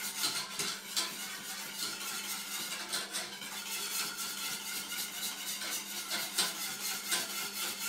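Wire whisk beating a flour-and-margarine sauce in a stainless steel saucepan, its wires scraping and tapping against the pot in quick, irregular strokes.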